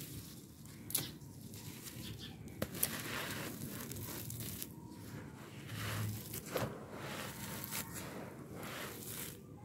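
Dry red-dirt slabs crumbling in bare hands: a gritty, crunchy crackle of breaking soil, with loose dirt trickling through the fingers and several sharp snaps as pieces break off.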